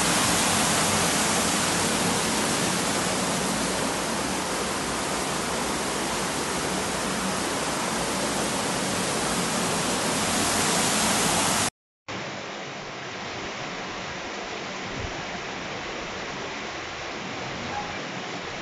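Muddy floodwater rushing steadily as it pours over a step into a house. About twelve seconds in the sound cuts out for a moment, and the rush of water resumes quieter and duller.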